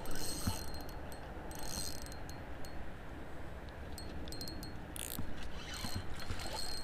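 Spinning reel clicking in several short spurts as a hooked carp is played on the line.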